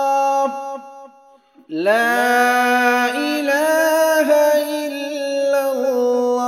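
Background devotional vocal music: long held sung notes without clear words. One note fades about half a second in, and after a short lull a new note glides up into place at about two seconds and is held, bending gently in pitch.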